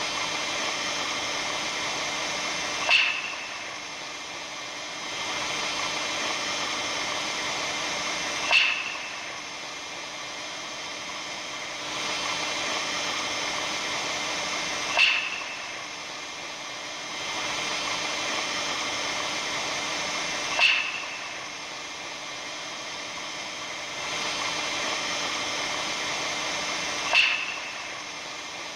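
Steady hiss with faint steady tones, which the uploader presents as the sound of the aurora borealis, broken five times by a short sharp crackle about every six seconds. After each crackle the hiss drops quieter for a couple of seconds before it rises again.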